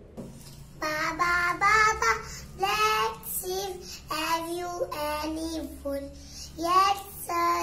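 A small girl singing in a high child's voice, in short phrases with brief pauses between them.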